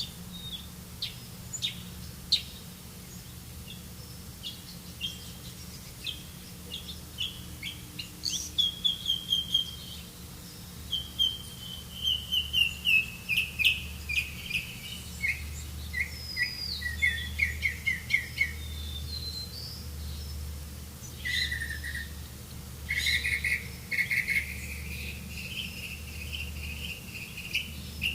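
Songbirds chirping and singing: scattered short chirps at first, then rapid trilled runs of repeated notes from about eight seconds on, over a steady low hum.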